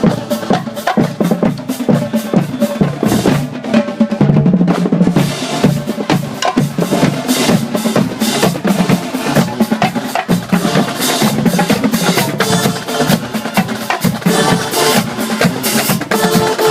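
Marching band playing, with a drumline of snare and bass drums beating out a fast, dense rhythm and drum rolls.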